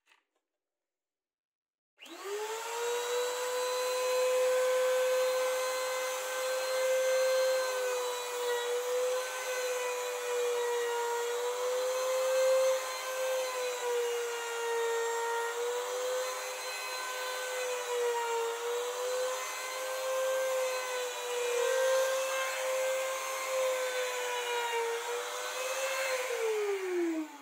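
Compact trim router switched on about two seconds in, running at a high whine as it planes the face of a wooden slab in a router sled, its pitch dipping again and again as the bit bites into the wood. Near the end it is switched off and the whine falls away as the motor winds down.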